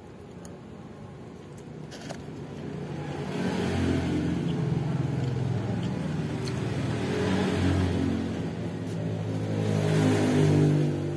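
A motor vehicle's engine running past, swelling up a couple of seconds in and staying loud, with its loudest point near the end.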